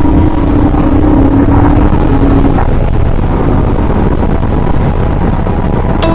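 Royal Enfield Himalayan motorcycle running on the move, with heavy wind rush over the camera microphone. A steady hum fades out about halfway through.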